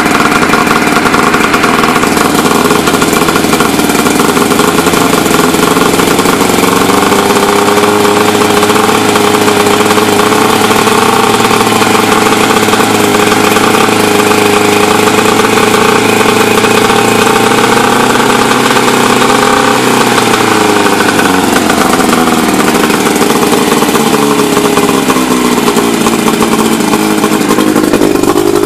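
Old Johnson two-stroke outboard motor running with its cowling off. It runs steadily, then its speed drops about two-thirds of the way through and wavers before picking up slightly near the end.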